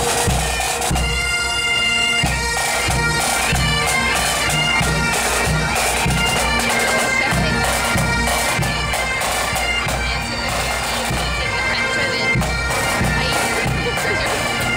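Pipe band on the march: massed Highland bagpipes playing a tune over their steady drones, with a regular bass drum beat underneath.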